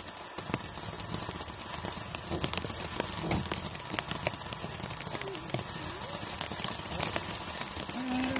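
Consumer firework cake going off: a dense, irregular run of crackling pops as its shots burst low in the air.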